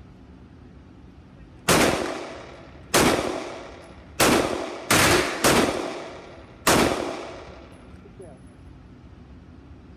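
Six gunshots fired at an uneven pace on an indoor range, two of them in quick succession near the middle, each shot sharp and loud with a short echoing tail off the range walls.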